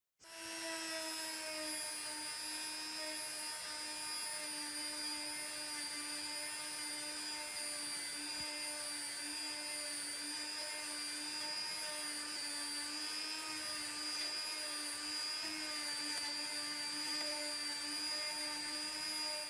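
A small electric motor running steadily with a high, even whine, as from a power tool at speed; its pitch settles slightly lower in the first couple of seconds.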